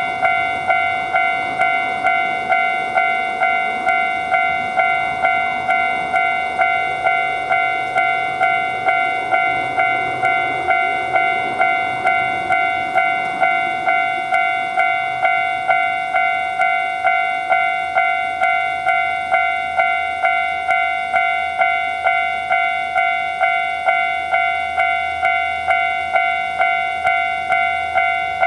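Japanese railroad crossing warning bell ringing its electronic 'kan-kan' in steady, evenly spaced strikes, about one and a half a second, with a train passing through the crossing underneath.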